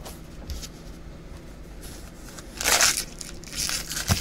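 Foil trading-card pack wrappers crinkling as the packs are handled and stacked. There is a loud crinkle a little past halfway and a sharp knock just before the end.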